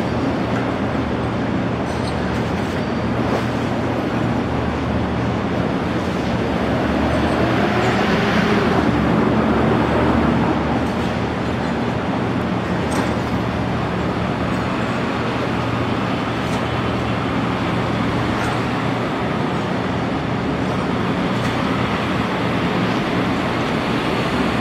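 Boeing Jetfoil's machinery running steadily during a fire pump test: a low hum over a rushing noise of pumped, churning water. It swells louder for a few seconds about a third of the way in.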